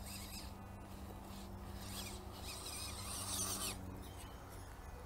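Small electric RC crawler truck's motor and gearbox whirring steadily as it crawls over moss and leaf litter, with rasping rustles that grow louder briefly about half a second in and again from about two and a half to nearly four seconds in.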